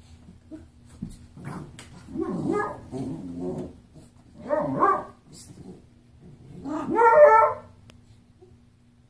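An eight-week-old Great Dane puppy growling and barking in four short bouts, the last the loudest, while playing with a raccoon.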